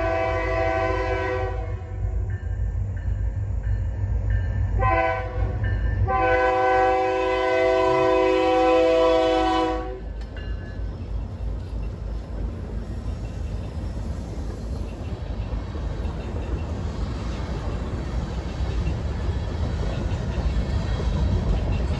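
Diesel freight locomotive's air horn sounding the grade-crossing signal, several notes at once: a blast ends a second or so in, a short blast comes about five seconds in, and a long blast runs from about six to ten seconds. Then the locomotive and the freight cars rumble past over the crossing with a steady clatter of wheels on rail.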